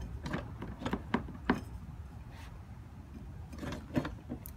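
Light knocks and clicks of parts being handled and fitted by hand, a handful of them spread out, over a low steady hum.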